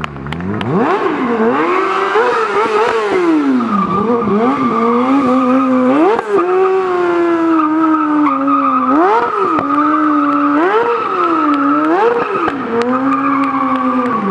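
Stunt motorcycle engine revving up and down over and over, with a steady tyre squeal running under it from a few seconds in.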